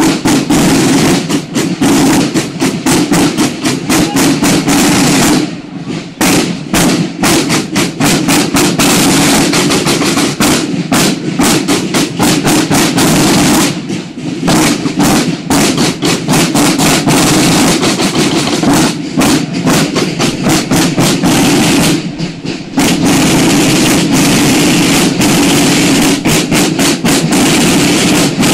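A buekorps drum corps of many marching side drums playing a fast cadence together, dense beats and rolls, with three short breaks about eight seconds apart.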